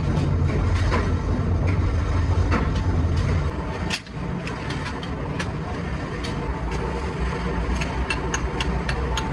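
Heavy factory machinery running with a steady low rumble, while flat steel blade blanks clink as they are stacked and pushed along a metal machine bed. The clinks come scattered, and more often near the end.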